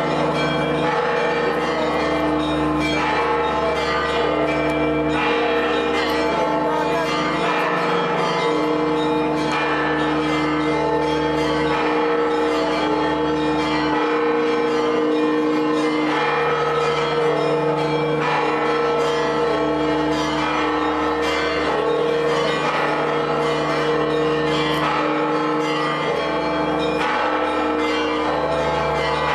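Church bells pealing: many bells struck in quick, uneven succession over their own lingering ring, keeping on without a break.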